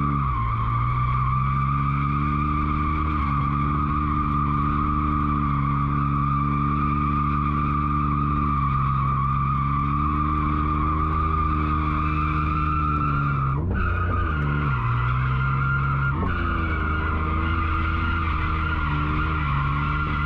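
BMW E46 drifting in tight donuts, heard from inside the cabin: the engine is held at high revs under a steady tyre squeal. Twice, about two-thirds of the way through, the engine note drops and surges back.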